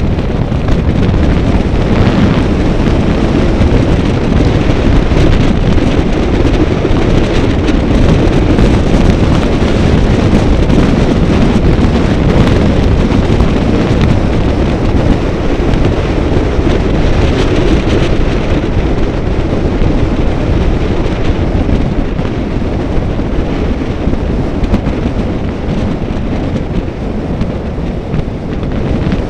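Loud, steady wind buffeting the microphone, a continuous rushing rumble that eases slightly near the end.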